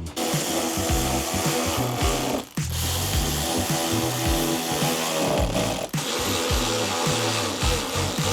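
A power tool runs in long stretches with two brief pauses, over background music with a steady bass beat.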